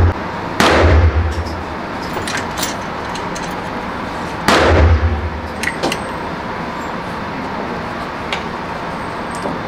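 Two suppressed 9mm shots from a Century Arms Draco 9S pistol, about four seconds apart, each a sharp crack with a brief low boom after it. A few much fainter sharp ticks fall in between, over a steady background noise.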